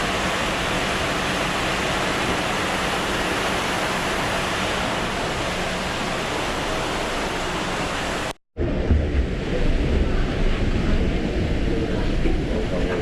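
Steady airliner cabin noise inside an Airbus A330-200, an even hiss of engines and airflow. About eight seconds in it cuts off abruptly and returns as a deeper rumble with less hiss.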